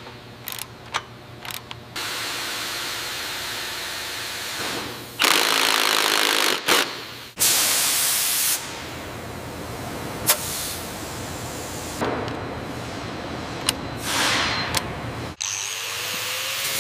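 A string of workshop tool sounds: a few sharp clicks of a ratchet wrench, then stretches of power tools running, with a loud burst about five seconds in and a brief hiss about seven and a half seconds in. Near the end it changes to a steady motor hum.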